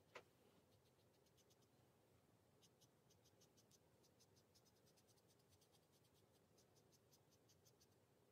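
Near silence, with very faint, quick light scratching of a paintbrush on watercolour paper as an area is filled in with paint, in short runs of strokes.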